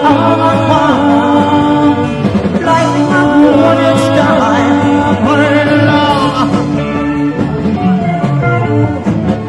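A live cover band playing rock and roll, with singing over the instruments.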